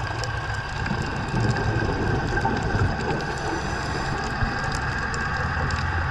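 Steady underwater noise picked up by a diver's camera: a low hum under a hiss, with faint scattered clicks.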